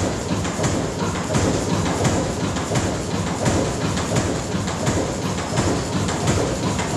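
Burmeister & Wain's Diesel Engine No. 1, a 1904 single-cylinder 40-horsepower diesel, running with a steady, rhythmic mechanical clatter.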